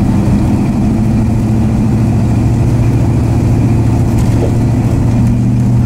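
1966 Dodge Dart GT heard from inside the cabin while driving at highway speed: a steady engine drone with road rumble beneath it. The engine note shifts slightly about five seconds in.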